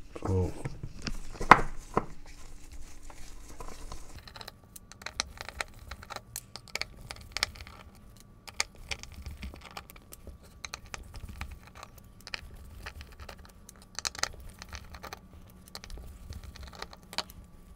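Screws being undone with a hand screwdriver to free a circuit board from its aluminium base plate: scattered small metal clicks, ticks and handling taps, with a sharp knock about a second and a half in.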